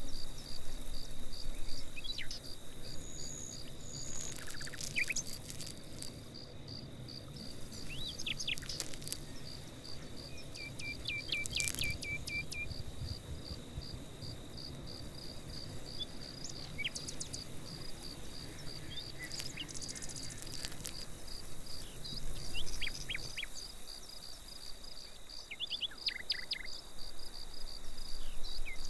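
Outdoor ambience: an insect calling in a steady, evenly repeating high pulse, with scattered short bird chirps over a low background rumble and a few light clicks.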